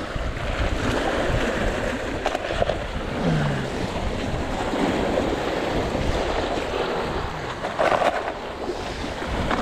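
Sea surf washing against the rocks of a breakwater, with wind buffeting the microphone. A couple of brief louder sounds come about three seconds in and near the end.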